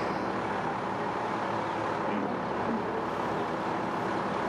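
A truck's engine running steadily at idle, with a constant even hum.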